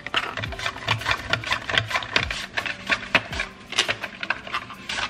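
Red potato sliced on a plastic V-blade mandoline: the hand guard pushed rapidly back and forth over the blade, a rhythmic scraping rasp of about four strokes a second.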